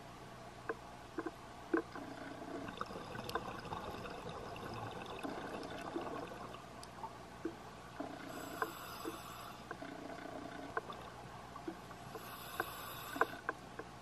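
Underwater ambience heard through a camera housing: scattered sharp clicks and crackles over a steady hiss, with two rushing bursts of a scuba diver's regulator breathing, one a little past halfway and one near the end.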